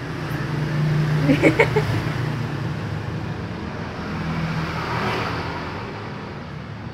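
Passing road traffic: an engine hum that swells twice, about a second in and again around four to five seconds in. A few brief sharp sounds stand out about one and a half seconds in.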